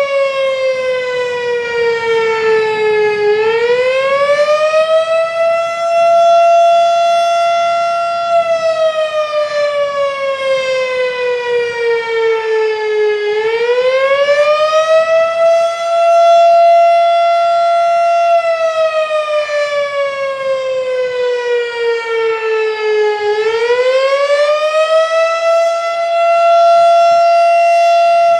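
Federal Signal STH-10 electromechanical fire siren sounding an attack signal. Its single tone winds up over a few seconds, holds at the top, then sinks slowly as the rotor coasts down, about every ten seconds. It winds up three times in all, and it is loudest at the top of each rise.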